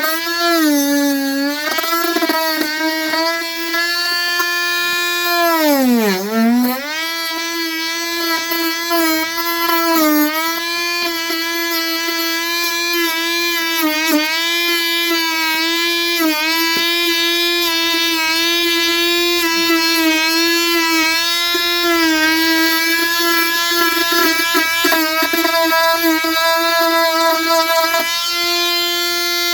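Dremel rotary tool running at high speed while trimming a broken fiberglass hull edge: a steady high whine that sags in pitch whenever the bit is pressed into the fiberglass, most deeply about six seconds in.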